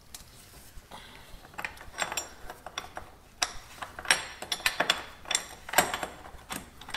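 A 27 mm wrench working loose the steel top cap of a KTM 65 SX front fork: irregular metal clicks and clinks as the wrench is turned and refitted on the cap's flats.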